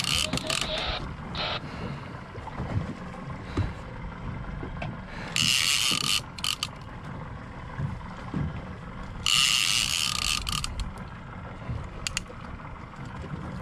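Big-game fishing reel working against a hooked dorado (mahi mahi): its ratcheting drag buzzes in three short runs of about a second each as the fish pulls line, with softer reel clicks between.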